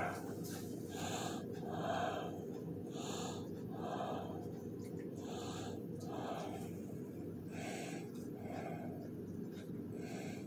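Noisy breathing in a steady rhythm, about one breath sound a second, over a steady low hum.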